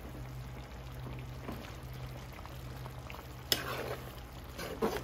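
Chicken and potato stew simmering in a pan while a metal spoon stirs it, with a steady low hum underneath. The spoon clinks sharply against the pan twice in the second half.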